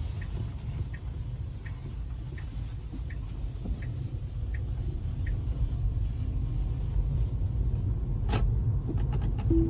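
Car interior on a wet road: a steady low rumble of tyres and road noise, with a turn signal ticking evenly, a little faster than once a second, through the first half as the car turns, then stopping. One sharp click sounds near the end.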